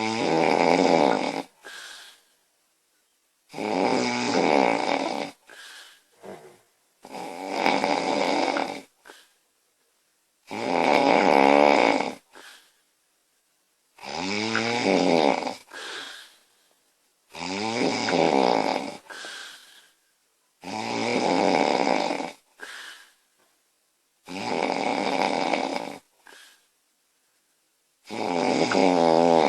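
A woman snoring loudly in her sleep: nine loud snores at about one every three and a half seconds, each followed by a short, quieter sound.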